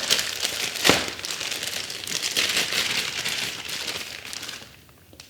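Packaging being handled and crinkled: a dense crackling rustle with a sharp click about a second in, dying away shortly before the end.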